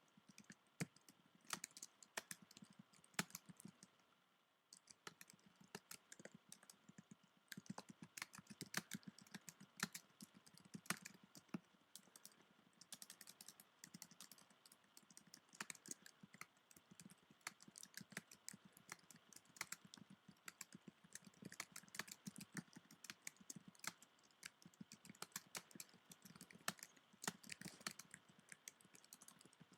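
Typing on a computer keyboard: a continuous, irregular run of quiet key clicks, with a brief pause about four seconds in.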